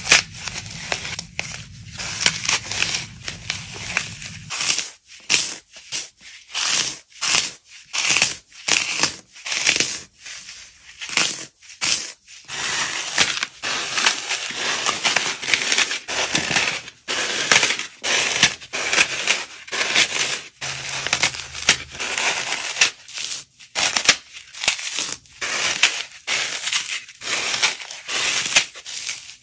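Dry floral foam crunching and crumbling as hands squeeze and break it apart: a run of crisp, crackly crunches, one squeeze after another, with short gaps between them.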